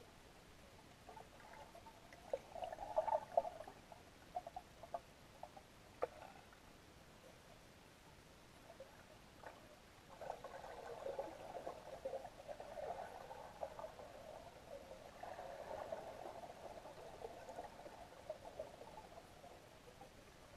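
Faint, muffled sloshing and trickling of water, with scattered small ticks. The sound grows into a steadier spell of sloshing from about halfway through.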